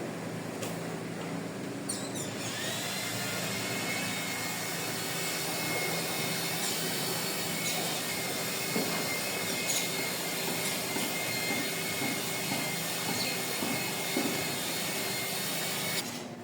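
A power tool's electric motor running steadily with a high whine, coming in about two seconds in and stopping just before the end.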